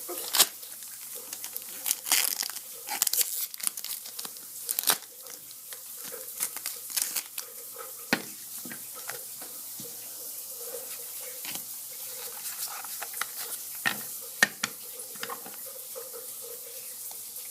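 Foil Pokémon booster pack being torn open and its wrapper crinkled, with a quick run of sharp crackles and rips in the first few seconds. This is followed by lighter rustling and sliding as the cards are pulled out and handled.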